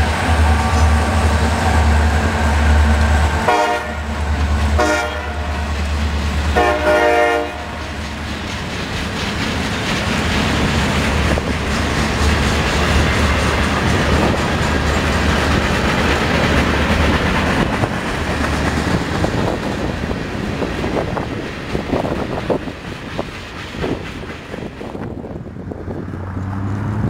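Diesel freight train passing close by: the locomotives' engines run with a steady low hum, and a train horn sounds three times, two short and one longer, between about three and eight seconds in. Then the freight cars roll past with steady wheel noise and rail-joint clicks. The sound cuts away shortly before the end.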